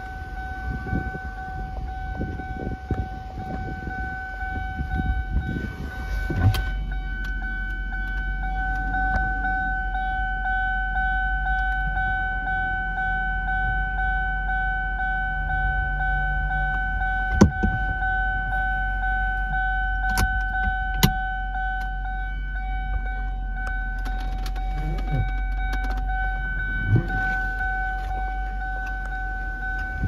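2002 Ford Thunderbird's 3.9-litre V8 idling in park, a steady low hum, under a steady high-pitched whine. A few sharp clicks come through around the middle.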